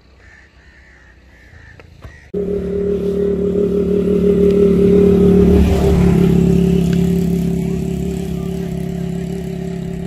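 Faint crow calls, then, about two seconds in, a motorcycle engine starts up loud and runs at a steady pitch, swelling and then slowly easing off.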